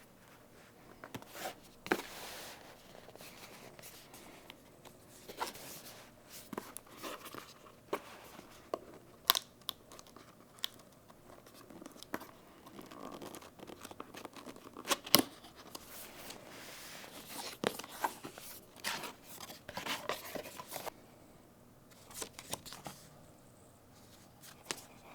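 Packaging being opened and handled by hand: tearing and rustling, with many scattered sharp taps and clicks. It goes quieter for a few seconds near the end.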